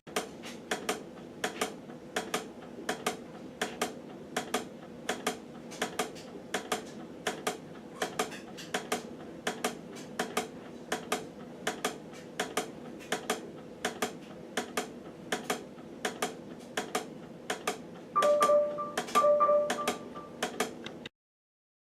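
Steady ticking, about three sharp clicks a second, over a faint hum, with two short electronic beeps near the end before it cuts off.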